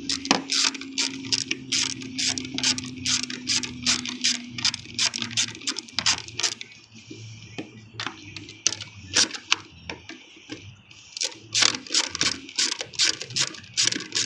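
Ratchet with an extension and 8 mm socket clicking in quick runs as the air filter housing bolts are loosened, with short pauses between runs. A low steady hum sits under the first few seconds.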